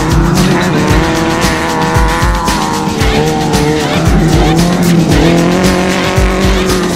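Music with a steady beat, about two beats a second, mixed with off-road race vehicle engines revving up and down.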